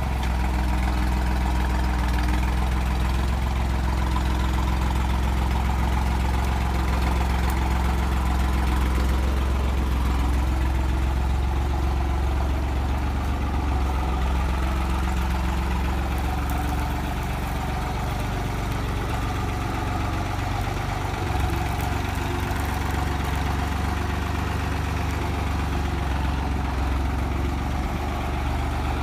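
New Holland 3630 tractor's three-cylinder diesel engine running steadily at low revs while the tractor moves slowly; the engine note shifts slightly a little past halfway through.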